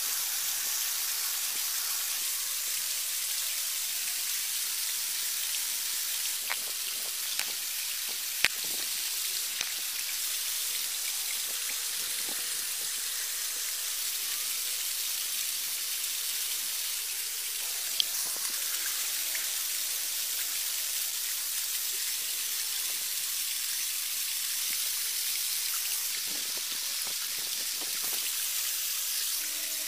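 Steady hiss of falling rain, with a handful of sharp clicks or ticks, the loudest about eight and a half seconds in and another at about eighteen seconds.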